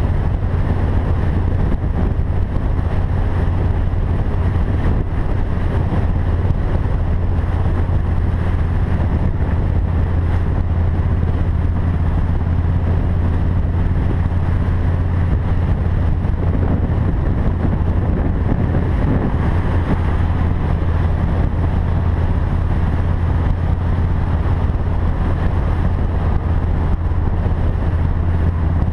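Harley-Davidson Fat Boy's V-twin engine running at a steady highway cruise, a deep even drone, with wind rushing over the microphone.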